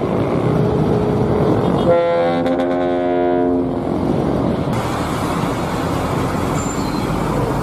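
Road traffic and a bus engine running. About two seconds in, a bus's multi-tone air horn sounds one steady chord for about a second and a half.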